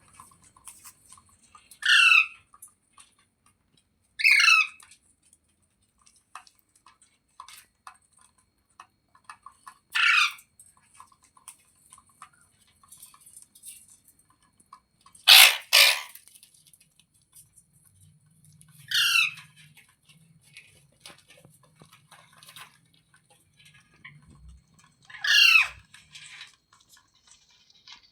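Indian ringneck parrot giving short, loud squawks, each about half a second long and falling in pitch, spaced a few seconds apart, with a quick double squawk about halfway through. Faint clicking between the calls.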